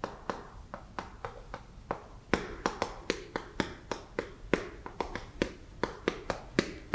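Chalk writing on a chalkboard: a quick, uneven run of sharp taps as each stroke lands, about four a second.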